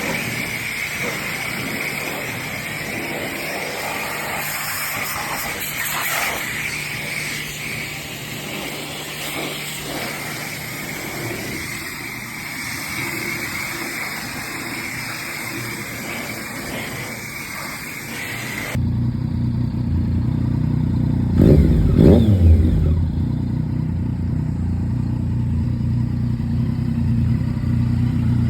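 Yamaha MT-09's three-cylinder engine through an Akrapovic exhaust. For most of the first two-thirds there is a hissier vehicle sound with a steady high hum. Then there is a sudden change to a deep, steady idle, with one sharp throttle blip a few seconds later before it settles back to idle.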